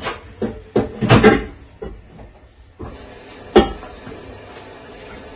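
Kitchen knocks and clunks as things are handled: a few quick knocks early, a louder cluster of clatter about a second in, and one sharp knock about three and a half seconds in.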